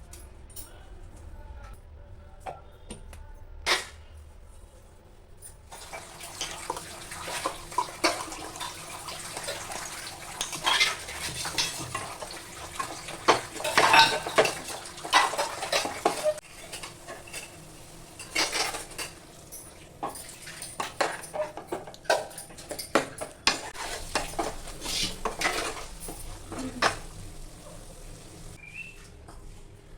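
Metal utensil clinking and scraping against a cooking pot, a single knock early, then a busy stretch of clinks and scrapes that eases off near the end.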